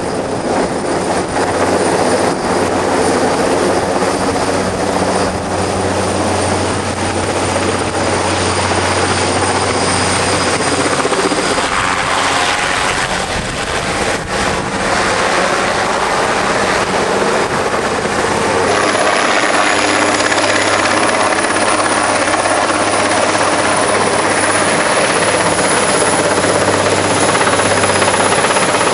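Sikorsky S-64 AirCrane heavy-lift helicopter running steadily overhead: a loud, continuous rotor and turbine noise with a low steady hum underneath.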